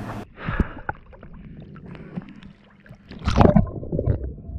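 Water sloshing and gurgling around a camera at the water's surface, with scattered small splashes. A louder splash a little after three seconds in as it goes under water.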